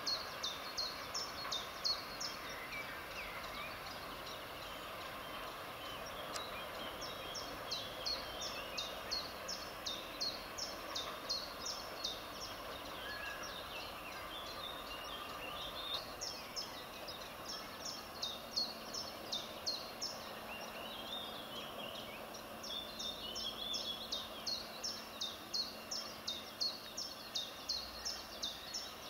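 Rapid high chirping, about three short downward chirps a second, in bouts of several seconds. Beneath it is a faint steady background hiss, and a faint low hum joins in about two-thirds of the way through. The approaching steam locomotive is not clearly heard.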